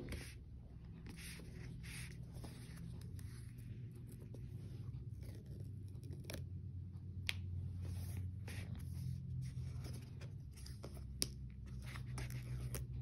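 Faint scraping and tearing at the sealed edge of a cardboard iPhone box as its paper seal is opened, with scattered small clicks and taps from handling the box, over a low steady hum.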